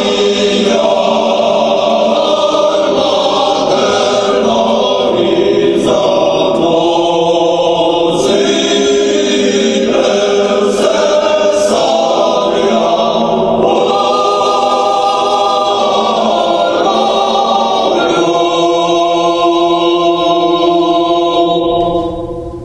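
A choir singing slow, sustained chords, the notes changing every couple of seconds, then fading out near the end.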